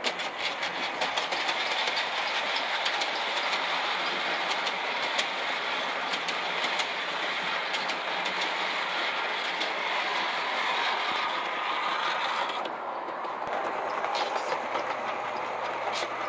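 Vintage O-scale scratch-built brass consolidation steam locomotive and cast-aluminum passenger cars running on outside-third-rail track. It makes a steady whirring rattle with frequent sharp clicks as the wheels cross rail joints, and a low hum joins near the end as the locomotive passes close by.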